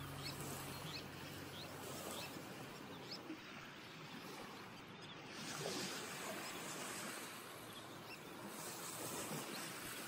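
Small waves lapping and washing up onto a sandy beach, the wash swelling about five and a half seconds in and again near the end, with a few faint short high chirps from birds.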